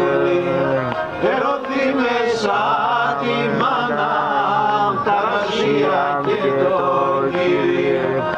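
A man singing a Pontic Greek folk song in a chant-like style, accompanied by a bowed Pontic lyra (kemenche).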